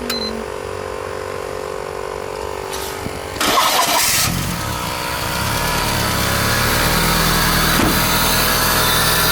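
A steady hum, then a car engine is cranked and catches about three and a half seconds in, and settles into a steady idle.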